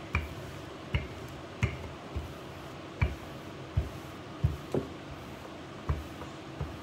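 Wooden rolling pin pushed back and forth over pizza dough on a stone countertop, giving about ten short, sharp knocks at uneven spacing, roughly one a second.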